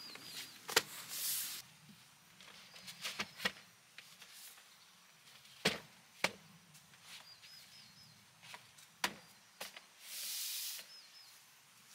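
Scattered sharp knocks and clicks, about half a dozen spread through the stretch, with a short hiss near the start and a longer one near the end.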